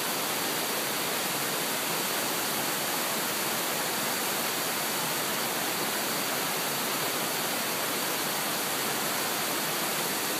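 Water of a mountain stream rushing, a steady, even hiss that does not change.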